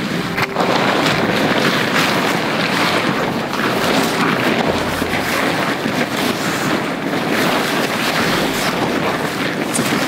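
Zane Arts Gigi-1 tent fabric rustling and flapping continuously as it is unfolded, shaken out and spread over the ground.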